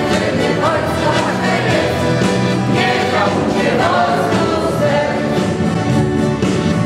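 A group of elderly amateur singers singing a song together to accordion accompaniment, with steady held accordion chords beneath the voices.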